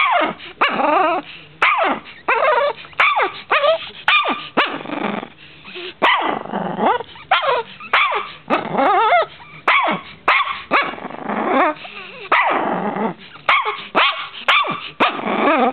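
Small white long-haired dog barking over and over, about one or two barks a second, mixed with drawn-out growly barks.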